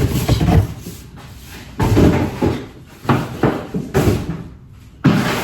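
Kitchen cupboard doors and drawers being opened and shut in a string of knocks and bumps, about one a second.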